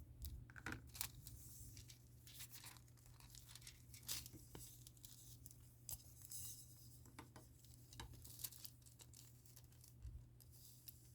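Faint crinkling and rustling of thin nail transfer foil being unrolled and handled, with scattered small clicks.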